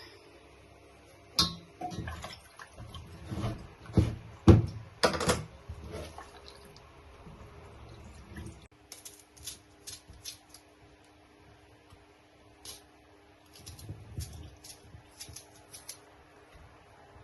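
Raw chicken being washed by hand in water: irregular splashing and knocks against the bowl or sink, loudest in the first few seconds, then lighter scattered handling sounds.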